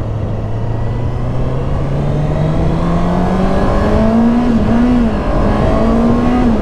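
Honda CBR650R's 649 cc inline-four engine accelerating under throttle, its note climbing steadily, then wavering twice and dropping back near the end, with wind rushing past.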